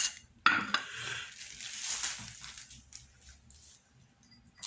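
Plastic cling film crinkling as it is handled and pulled off a container of homemade syrup. It starts sharply about half a second in and fades out over the next few seconds.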